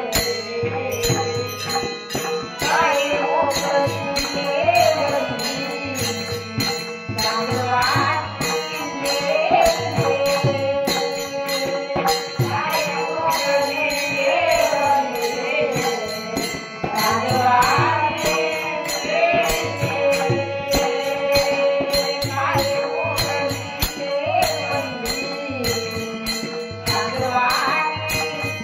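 Marathi devotional bhajan music: a sustained melody with gliding sung or played phrases, over hand cymbals and a drum keeping a steady rhythm.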